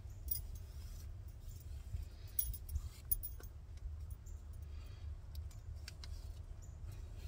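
Faint scattered clicks and light rustling as a comb is worked through wet hair, with beaded bracelets and metal rings clinking on the moving wrists, over a steady low rumble.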